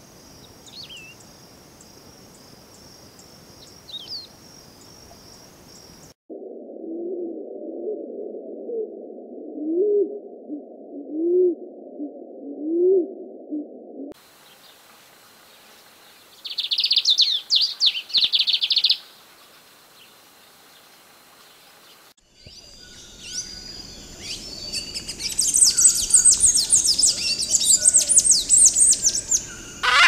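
A run of separate bird recordings: a steady insect drone with a couple of faint chirps from a wedge-tailed grass-finch; then a scaled pigeon's low coos, each rising, about every second and a half; then a lined seedeater's quick song of high notes lasting about two seconds. The last third is a busy stretch of very high, squeaky twittering from another songbird.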